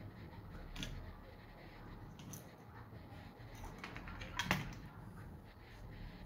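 Light, irregular clicks and taps of the white plastic casing of a FIMI X8 drone battery being handled and pulled apart as it is disassembled, with one sharper click about four and a half seconds in.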